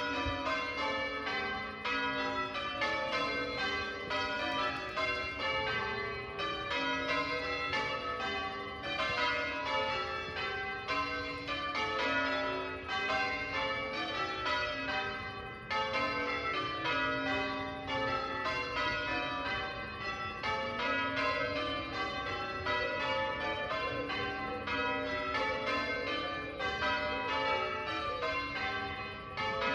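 A ring of church tower bells in change ringing, struck one after another in a continuous, unbroken sequence, each strike ringing on under the next.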